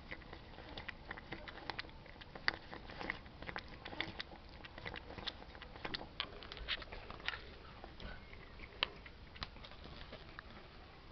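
Cat lapping milk from a china saucer, close up: a run of quick wet clicks and smacks, irregular, several a second.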